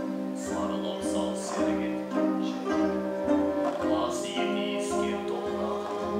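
Kazakh traditional ensemble music: plucked and bowed folk string instruments and a zither playing sustained melodic lines over a steady low drum pulse about twice a second.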